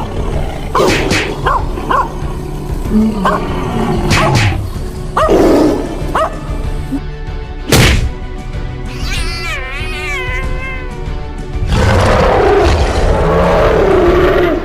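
Fight sound effects over background music: animal growls and roars, several sharp hits, and a wavering cry that falls in pitch about two-thirds of the way through, ending in a long, loud rough roar.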